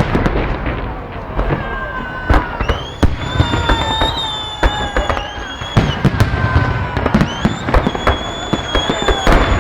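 Fireworks display: a dense run of sharp bangs and crackles from exploding shells. Over them come long high whistling tones, several overlapping, each lasting a second or two.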